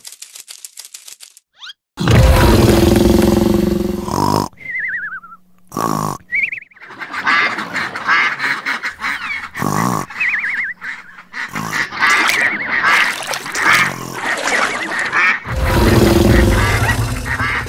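Cartoon duck quacks, with short wavering squeaks, in a busy mix of sound effects. Loud rough bursts come about two seconds in and again near the end.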